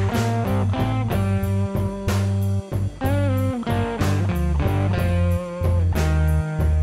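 Background rock music led by electric guitar over bass and drums, with a bent guitar note about three seconds in.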